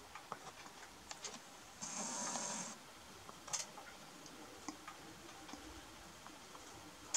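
Iberian lynx lapping water from a pond: a faint scatter of small wet clicks and ticks as its tongue hits the surface. About two seconds in comes a louder hissing burst lasting about a second.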